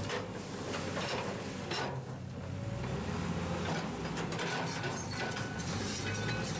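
Diesel engines of a wheel loader and a hydraulic excavator running steadily under load, with scattered clicks and scraping as the loader's bucket pushes through piled pumice and volcanic ash.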